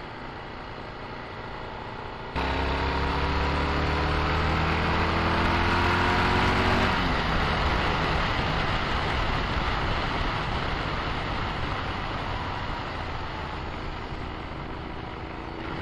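Motorcycle riding noise, quieter at first; about two seconds in it turns louder as the engine pulls hard with a steadily rising pitch, then a gear change about seven seconds in, after which engine and wind noise run on at speed and slowly ease off.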